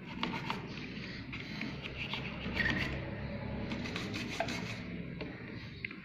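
A stiff plastic brush wet with solvent scrubbing over the MOSFETs and chips of a Gigabyte desktop motherboard. It makes a continuous rasping rub with many small clicks as the bristles and handle catch on the components. The scrubbing is cleaning off carbon while a no-power fault is being chased.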